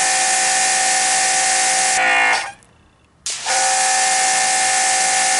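Electric pressure washer spraying: the hiss of the water jet over the steady whine of the motor and pump. About two seconds in it cuts out as the trigger is released and the automatic shutoff stops the motor. About a second later it starts again when the trigger is pulled.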